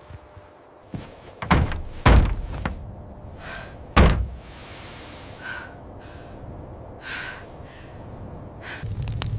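Several heavy thuds and knocks, like a wooden door banging shut. The loudest come about two and four seconds in, with softer scraping or rustling sounds between them.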